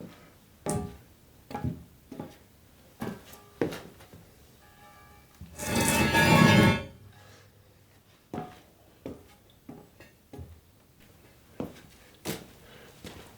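Foley sound effects being made: about a dozen separate sharp knocks and clicks, with one louder rushing noise lasting about a second midway.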